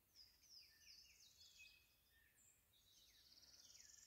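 Faint chorus of small songbirds: quick chirps and falling whistles overlapping, with buzzy trills, one of them rising steadily through the last second.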